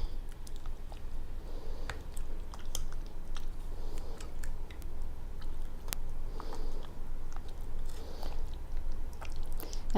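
A thick mixture of cream cheese, sour cream and milk being stirred by hand in a bowl: repeated soft, wet strokes with scattered light clicks of the utensil against the bowl.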